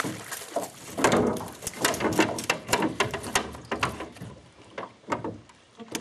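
A hooked fish thrashing and splashing at the water's surface beside the boat: a rapid, irregular run of splashes for about four seconds, then a few scattered splashes near the end.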